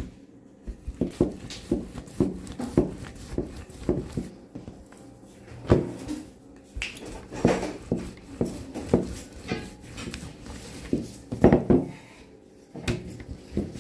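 Irregular knocks and clatter of kitchen dishes, pans and utensils being handled, with several louder clusters of knocks partway through.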